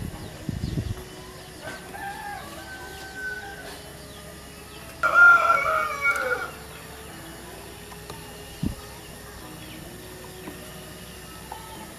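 A rooster crowing once, a loud call of about a second and a half starting about five seconds in, with a fainter call a few seconds before it.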